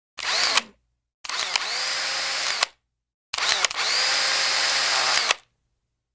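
Electric power drill run three times: a short burst, then two longer runs of about one and a half and two seconds, each rising in pitch as the motor spins up and then holding a steady whine before cutting off.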